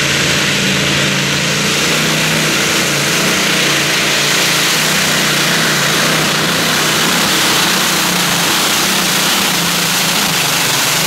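Modified-class pulling tractor with supercharged engines running flat out and steady as it drags the weight-transfer sled down the track.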